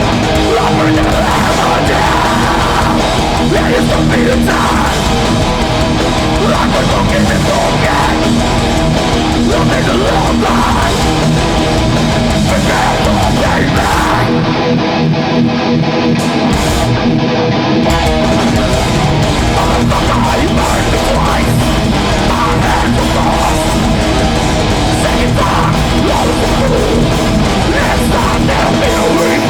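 Hardcore metal band playing live on a concert PA: loud, continuous distorted electric guitars, bass and drums. About halfway through, the music thins out for roughly three seconds, losing its deepest and highest sounds, then comes back in full.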